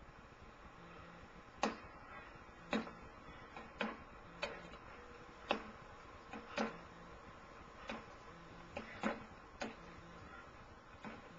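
Boxing gloves punching a hanging heavy bag: about a dozen sharp hits at an irregular pace, several landing in quick pairs. The hits are heard as played back through a TV speaker and picked up again by a camcorder.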